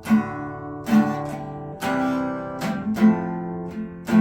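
Acoustic guitar strummed slowly, one chord about every second, the pitches shifting from chord to chord as a simple progression is tried out.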